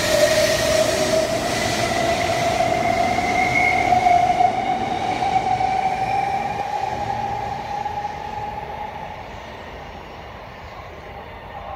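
Taiwan High Speed Rail 700T high-speed train accelerating out of the station past the platform: a whine that rises slowly in pitch, from the traction motors, over the rush of the passing cars. The sound fades from about seven seconds in as the tail end draws away.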